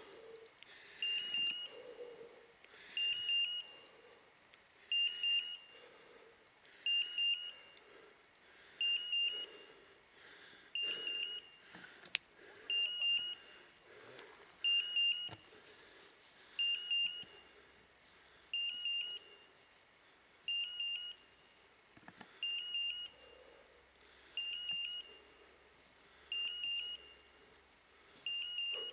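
Electronic beeper collar on a hunting setter, giving a short high beep at a steady pace of about one every two seconds.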